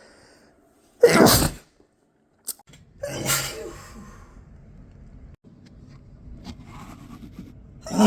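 A man sneezing repeatedly in a fit he can't stop. There is one loud sneeze about a second in, another about two seconds later, and a third starting at the very end.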